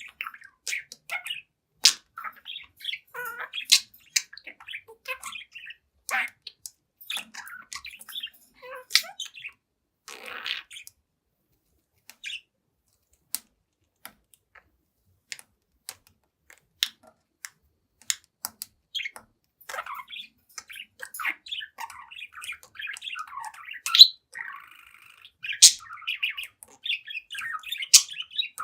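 Young budgerigar chirping and chattering, with sharp clicks among the calls. The sounds thin out to a few scattered clicks in the middle, then pick up again into a busy, continuous warbling chatter for the last third.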